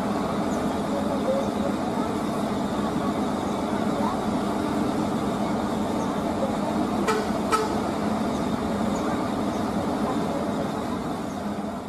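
A large intercity coach's diesel engine running as the bus rolls slowly forward: a steady low hum with several engine tones. Two short sharp clicks come close together about seven seconds in.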